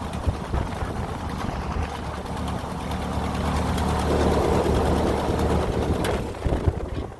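An engine running steadily, its low hum coming up about two and a half seconds in and dropping away near the end, over a rough outdoor noise.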